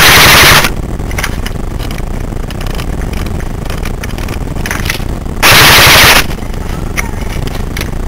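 Airsoft gun firing two short full-auto bursts right at the camera microphone, each lasting well under a second and about five seconds apart, loud enough to overload the recording.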